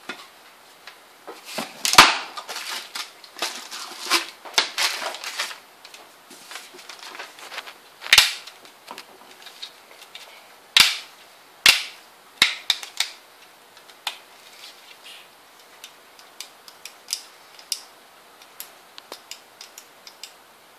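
Hands handling a plastic LED tube camping lamp: a series of sharp plastic clicks and knocks, several loud ones, with some rustling in the first few seconds and lighter ticks toward the end.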